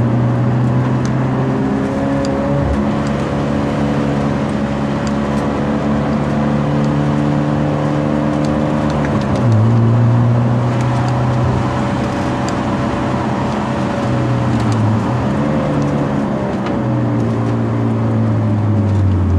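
Hyundai Genesis Coupe 2.0's turbocharged four-cylinder engine running steadily on a downhill run, with a change in pitch and a slight rise in level about halfway through and a brief dip a few seconds later.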